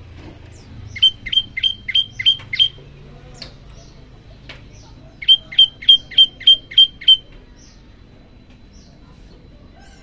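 Prenjak lumut singing: two loud runs of about seven sharp, evenly spaced notes, roughly three a second, with fainter chirps from other birds between the runs.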